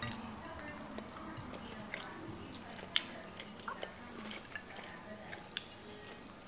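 Quiet eating by hand: chewing, with small soft clicks and squishes of fingers picking chicken off plates, and one sharper click about three seconds in.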